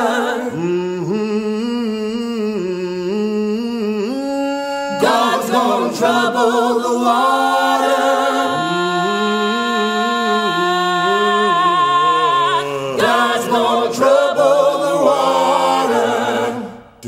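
Vocal ensemble singing a cappella in harmony, several voices holding notes and stepping together from pitch to pitch. New phrases begin about five and about thirteen seconds in, and the singing cuts off just before the end.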